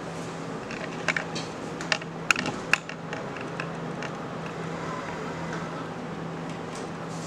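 Light plastic clicks and taps, about half a dozen within the first three seconds, from hands working the control-panel buttons and head holder of a Giano HR panoramic dental X-ray unit, over a steady low hum.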